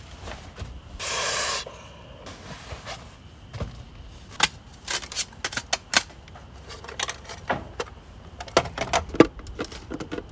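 Food containers and packs being unpacked and handled: a short rustling rush about a second in, then a run of irregular clicks and knocks.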